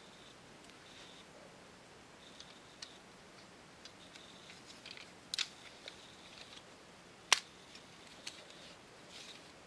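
Plastic clicks and taps from a Lego revolver being handled, its cylinder and bricks turned and pressed by fingers. The clicks are scattered and irregular, with one much sharper click about seven seconds in.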